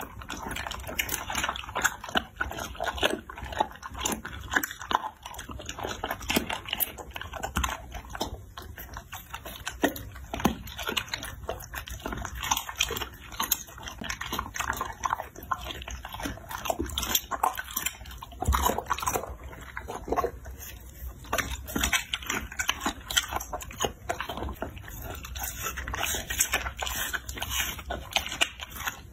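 Dog chewing and biting into raw meat: a steady run of wet smacks and clicks from its mouth.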